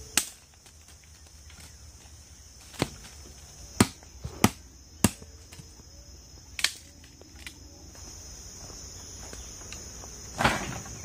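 Dry branches and sticks snapping as they are broken up for firewood: about seven sharp cracks at irregular intervals, the loudest near the end. A steady high insect hum runs underneath.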